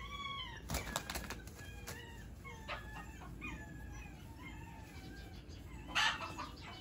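Live pigeon with its wings taped fluttering and flapping on the grass in short bursts, about a second in and again near the end. Between the bursts come faint, thin, falling whimpers from a puppy.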